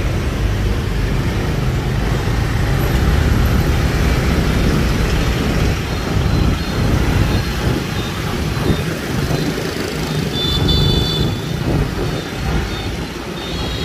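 Dense motor-scooter traffic heard from a motorbike riding along in it: many small engines running together with steady road rumble.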